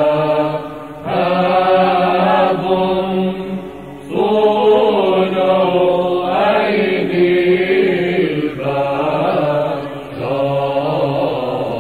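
Byzantine Orthodox church chant in Arabic, sung by chanters in long melodic phrases with brief breaths about one, four and ten seconds in.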